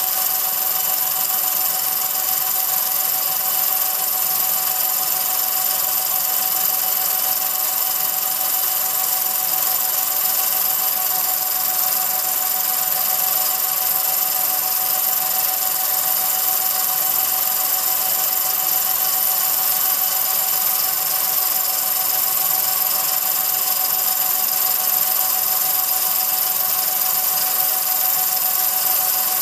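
8 mm film projector running steadily: an even mechanical whirr and hiss with a constant high whine that never changes.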